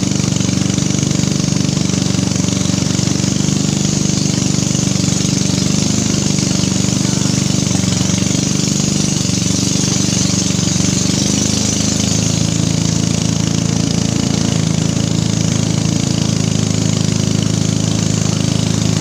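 Engine of a narrow river longboat running steadily under way. Its pitch shifts slightly about twelve seconds in.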